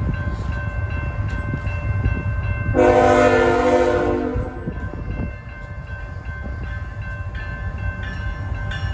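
CN diesel freight locomotive approaching, sounding one horn blast of several notes at once about three seconds in, lasting under two seconds. A steady low rumble runs underneath.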